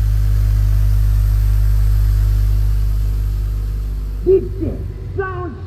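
JL Audio subwoofer and a second subwoofer in a wooden CBS box playing music: a loud, long, deep bass note that holds steady and eases off after about three seconds, with a few short pitched notes near the end.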